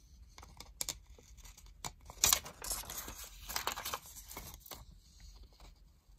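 Scissors snipping through clear adhesive tape at the edge of a sheet of paper, with crackling and crinkling from the tape and paper between the cuts. The loudest snip comes a little over two seconds in.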